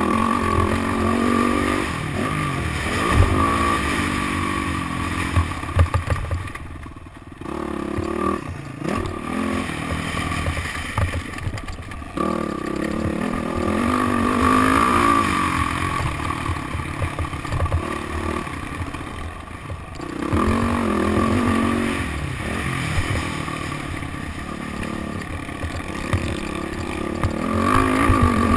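Motocross dirt bike engine revving up and down as it is ridden around a track, the throttle rolled off and reopened again about 7 seconds in and again about 20 seconds in, with repeated low knocks throughout.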